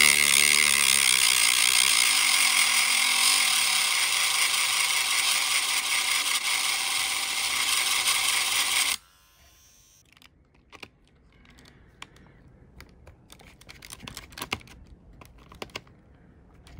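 Rotary tool with a small cut-off disc grinding a slot into the head of a stripped M.2 SSD screw: a loud, high-pitched grinding that cuts off suddenly about nine seconds in. After it, faint clicks and ticks as a precision screwdriver is set into the new slot and turned.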